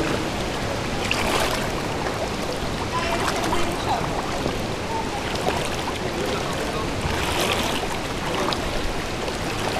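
Shallow river water rushing over pebbles, with splashes from legs wading through it, a few sharper ones now and then.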